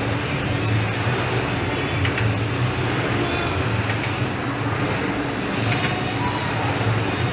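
Air rowing machine's fan flywheel whirring, swelling and easing with each rowing stroke.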